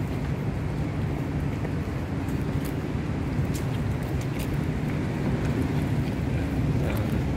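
A steady low rumble with faint scattered clicks.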